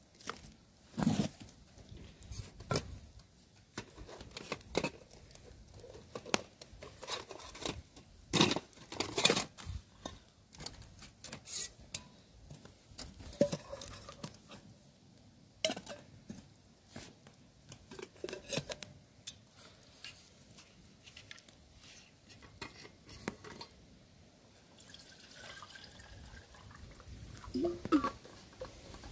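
Irregular clicks, knocks and rustles of camp gear being handled, loudest in a cluster about a third of the way through and again near the end.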